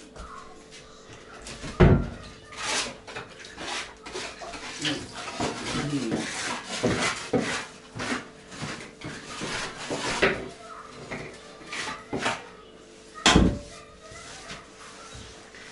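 Cleanup clatter: a wet mop knocking and scrubbing on wooden floorboards and a dustpan scraping up stove debris. There are two loud knocks, about two seconds in and near the end.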